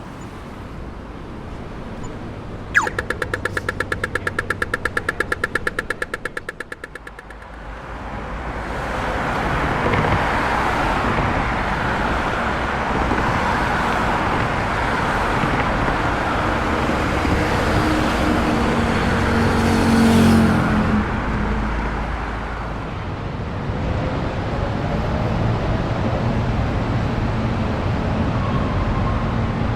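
Street traffic. A rapid, even ticking runs for about four seconds early on, then vehicles pass, one with an engine note that rises and falls near the middle, over a steady rush of road noise.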